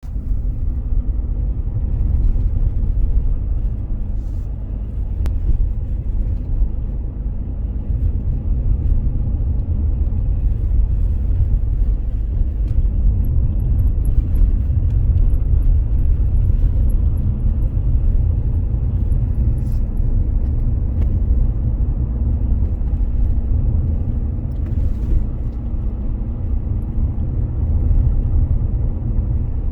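Steady road and drivetrain rumble inside the cabin of a moving Mitsubishi Delica D:5, with faint, occasional creaking clicks from the dashboard. The creaking comes from the Alpine BigX11 navigation unit rubbing against the air-conditioning control panel beside it.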